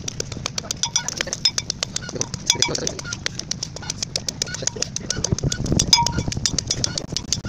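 Metal pestle pounding green olives in an iron mortar: rapid, repeated strikes, several a second, some with a short metallic ring.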